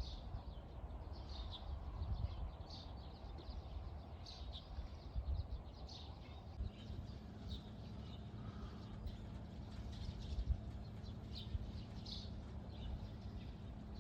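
Birds chirping in short, irregular calls over a low rumble, with a steady low hum joining about six and a half seconds in.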